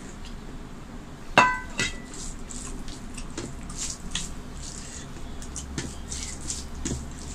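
Stainless steel bowl clinks sharply against steel dishes as it is set down about a second and a half in, ringing briefly, with a lighter clink just after. Then come soft wet clicks and squelches of fingers mixing rice and curry on a steel plate.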